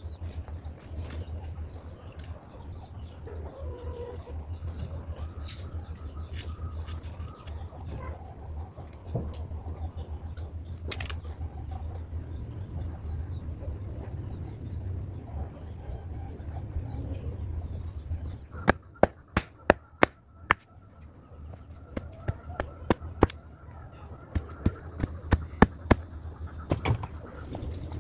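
Insects droning in one steady high tone, over a low outdoor rumble. About two-thirds of the way in come two quick runs of sharp knocks, more than a dozen in all, louder than anything else.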